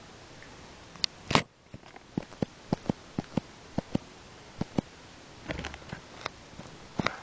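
Jack Russell terrier chewing a toy: after a quiet start, one loud click about a second in, then a run of sharp, unevenly spaced clicks and crunches as her teeth work at it, with a short rustle near the end.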